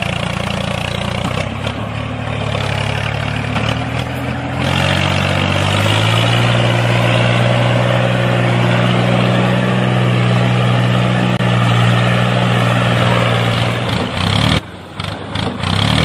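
Tractor engine running steadily, its pitch stepping up about five to six seconds in, then dying away shortly before the end.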